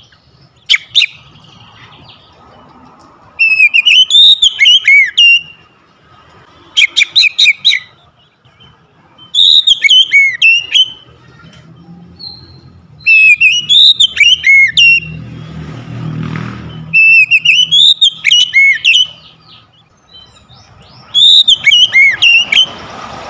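Oriental magpie-robin singing: short bursts of high, sliding whistled notes about every three seconds. A low rumble comes up briefly about two-thirds of the way in.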